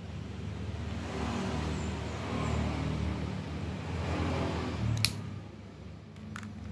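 A small gas torch lighter hisses while heating a battery's plastic shrink wrap, over a steady low engine-like hum. A sharp click comes about five seconds in, and two lighter clicks follow about a second later.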